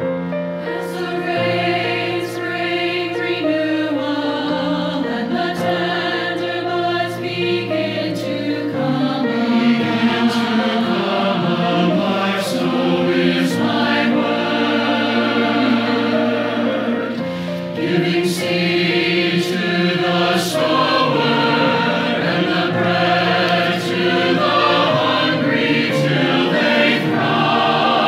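Mixed adult church choir, men's and women's voices together, singing an anthem in harmony over steady held low accompaniment notes, swelling louder over the first ten seconds.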